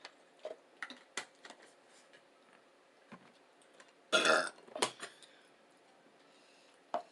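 A person burps once, loudly, for about half a second about four seconds in, with scattered small clicks before and after it.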